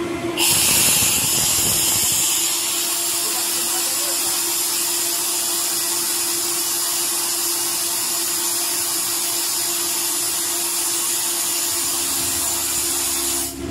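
Compressed air hissing out steadily at a loud level, starting about half a second in and cutting off suddenly near the end, as the line pressure of an Atlas Copco GA15 rotary screw compressor falls. Under it, the compressor runs unloaded with a steady hum.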